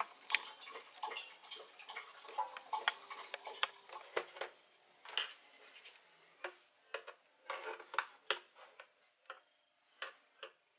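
Irregular clicks and knocks of a plastic laptop case being handled and set down on a table, dense in the first half and sparser toward the end, with light taps as a small screwdriver comes to the bottom cover.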